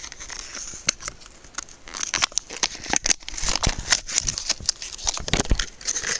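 Packaging being torn open and crinkled by hand: an irregular run of crackles and rustles that gets busier from about two seconds in.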